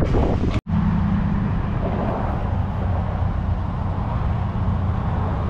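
Steady low rumble of vehicle engines running, with wind noise on the microphone. There is a brief dropout about half a second in.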